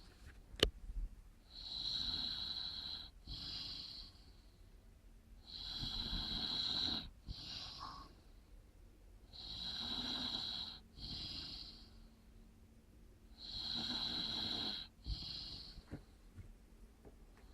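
A sleeping man snoring in a steady rhythm: four breaths about four seconds apart, each a long snore followed at once by a shorter one. A sharp click sounds just after the start.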